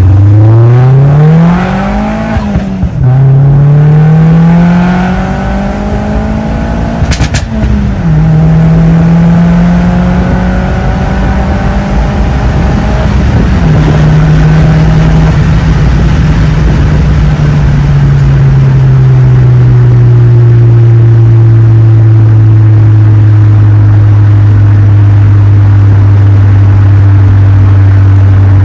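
Vauxhall Zafira's engine accelerating up through the gears: the note climbs and drops back at each of about three gear changes in the first fourteen seconds, then settles into a steady cruise.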